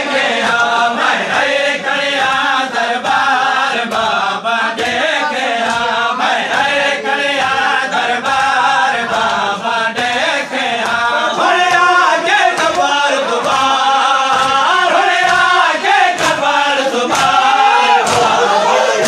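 A noha chanted by lead reciters with a crowd of mourners joining in. Under it runs matam: hands striking bare chests in a steady beat, about two strikes a second.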